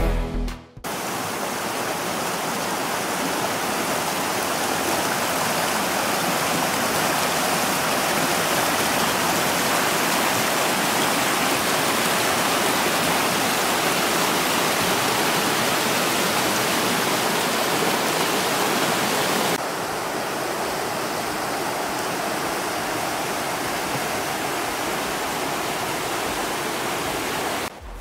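River rapids: water rushing over rocks in a fast, shallow river, a steady even roar of white water. The roar drops slightly in level and loses some of its hiss about two-thirds of the way through.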